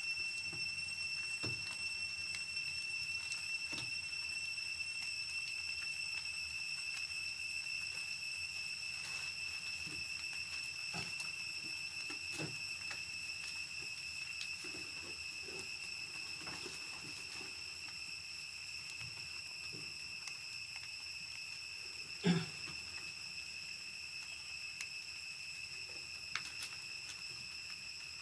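A steady, high-pitched insect drone that holds one pitch, with faint scattered rustles and one short thump about twenty-two seconds in.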